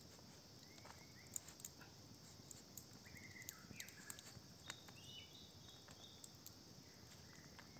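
Quiet forest ambience: faint short whistled bird calls at scattered moments, with a few soft clicks.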